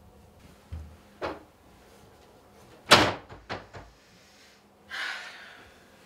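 Wooden door being handled: two light knocks, then a loud slam about three seconds in followed by two softer knocks, and a short swish near the end.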